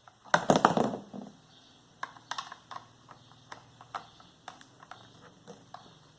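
Screwdriver and hands working the screws out of a fan's plastic motor cover. There is a louder clatter of handling about half a second in, then scattered light clicks and taps.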